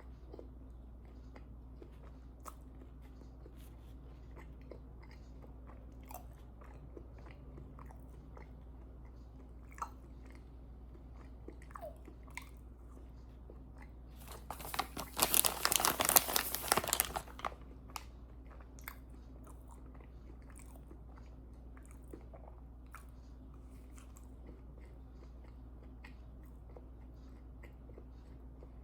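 Close-up mouth sounds of someone chewing small fudge brownie bites: scattered soft wet clicks, with a louder stretch of dense crackling for about three seconds in the middle. A steady low hum lies under it.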